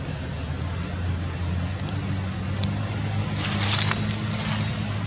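An engine running steadily with a low hum, and a short hiss about three and a half seconds in.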